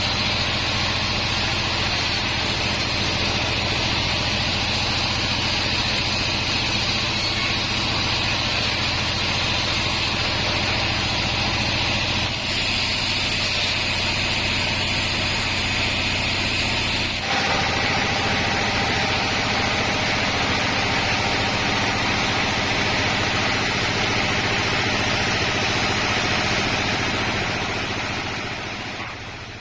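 Sawmill bandsaw running steadily, a continuous dense machine noise with a slight shift in its tone about 17 seconds in, fading out at the very end.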